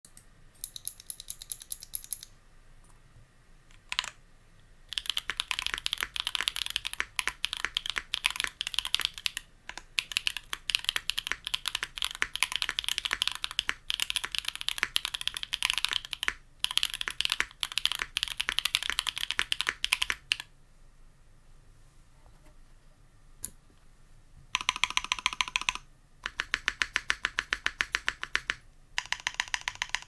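Mechanical keyboard typing: a Mikeneko65 with stock Gateron Baby Kangaroo tactile switches on an FR4 plate, with JTK keycaps. A few single presses, then fast continuous typing for about fifteen seconds, a pause, and rapid, evenly spaced repeated key presses near the end.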